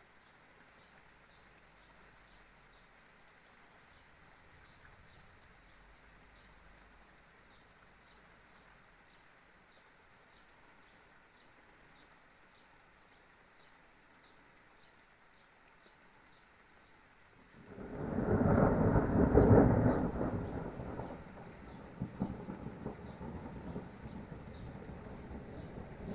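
Thunder: after a long quiet stretch, a sudden loud rumble breaks in about two-thirds of the way through, loudest for a couple of seconds, then dies down into a lower rumble that goes on to the end.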